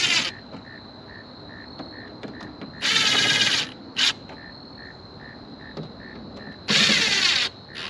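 Cordless driver whirring in three short bursts, driving small rubber-washered screws into the lid of a cold air intake: one burst right at the start, a longer one of about a second near the middle with a brief blip after it, and one near the end.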